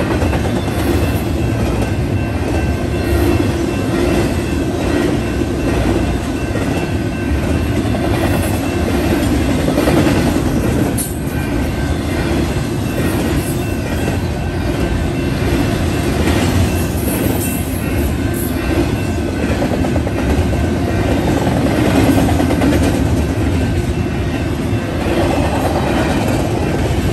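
Union Pacific double-stack intermodal train's well cars rolling steadily past: a loud, even running noise of steel wheels on the rails that does not let up.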